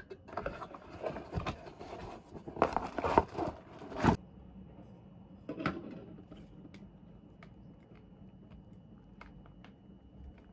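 Rustling and clicking of small objects being handled, busy for about four seconds and ending in a sharp click, then a few faint ticks.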